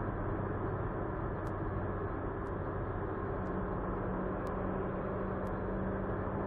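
Steady drone of a car driving: road and engine noise with a low, even hum.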